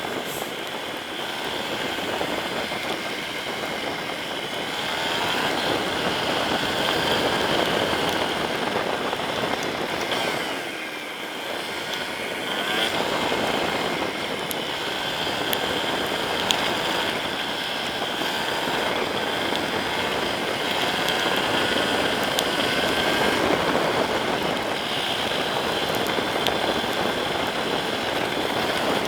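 Yamaha Serow 250's air-cooled single-cylinder engine running under way, its pitch rising and falling with the throttle and easing off briefly about eleven seconds in, over a steady rush of wind and road noise.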